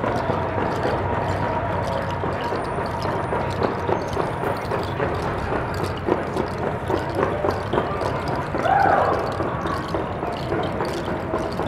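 Footsteps of a group walking on a paved street: a dense run of taps and clicks over a steady traffic hum, with a short rising-and-falling call about nine seconds in.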